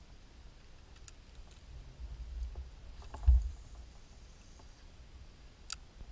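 Dull knocks and bumps on a plastic sit-on-top kayak hull, the loudest a single thump about three seconds in, with a few light sharp clicks.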